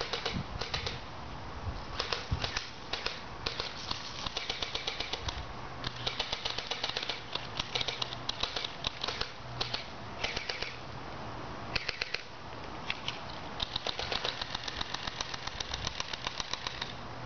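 Airsoft guns firing in rapid full-auto bursts: quick runs of sharp clicking shots, some bursts a second or two long, repeated many times over.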